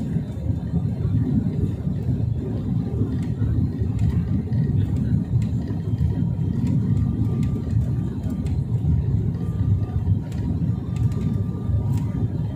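Steady low cabin rumble of a turboprop airliner on final approach, with engine and airflow noise heard from inside the passenger cabin.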